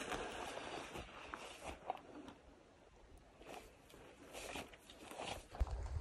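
Hikers' footsteps on rough ground, irregular steps about once a second, with some rustling. A low thump comes near the end.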